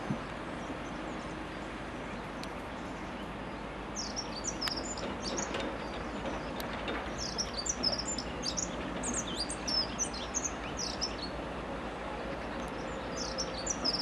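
Small birds chirping in quick clusters of short, high notes over a steady background of outdoor noise; the chirping starts a few seconds in, pauses briefly and returns near the end.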